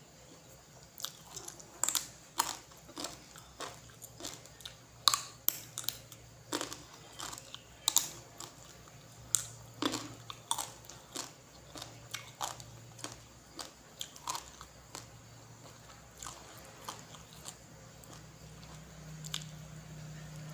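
A person chewing and biting spicy grilled-pork salad close to the microphone: irregular crunches and wet mouth clicks, several a second in spurts.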